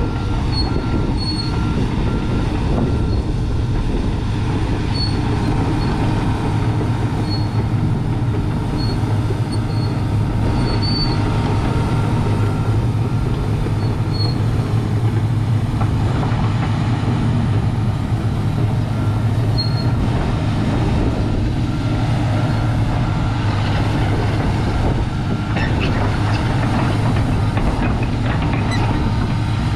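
Komatsu PC300-8M0 hydraulic excavator's six-cylinder diesel engine running steadily, with a short high beep repeating on and off.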